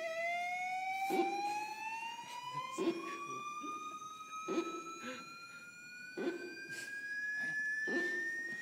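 Electroacoustic noise-installation piece: a sustained tone with overtones glides slowly and evenly upward in pitch under a second, steady higher tone. A short knock-like pulse comes about every second and a half to two seconds.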